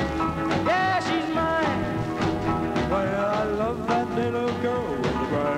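Background music with a steady beat and a melody of bending, sliding notes.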